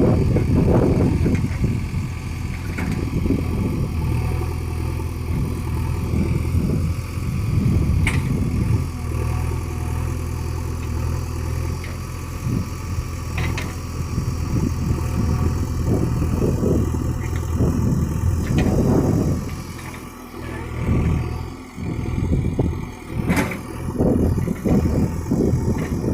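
JCB 3DX backhoe loader's diesel engine running as the machine works, its level swelling and easing, with a few sharp knocks along the way.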